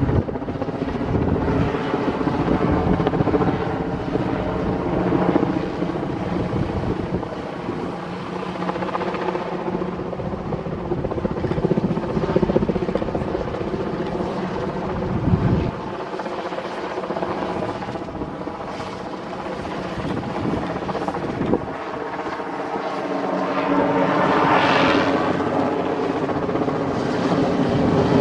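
Westland Wessex helicopter flying past close by: steady rotor beat and engine drone, swelling and fading as it turns. It grows louder and brighter near the end as it passes overhead.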